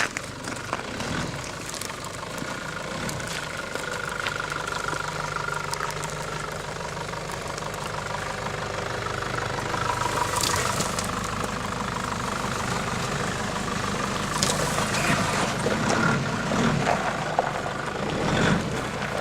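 An off-road vehicle's engine running steadily at low revs, with scattered knocks and rattles that come more often in the second half.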